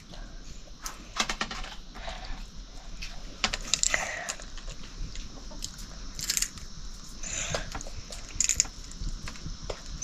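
Children cracking fried katus (wild chestnut) nuts open with their teeth and fingers and chewing the kernels: irregular small sharp cracks and clicks of breaking shells.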